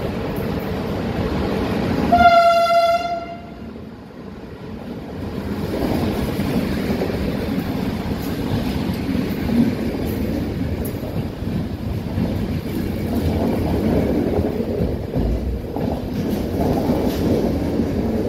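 Passenger coaches rolling past with a steady rumble and wheel clatter. About two seconds in, a train horn gives one short toot of about a second, and the rumble drops away briefly after it before coming back.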